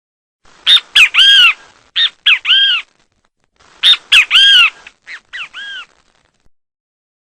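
Great kiskadee (bem-te-vi) calling in two bursts of short, harsh, arched notes, the second burst trailing off into a quieter repeat of the phrase.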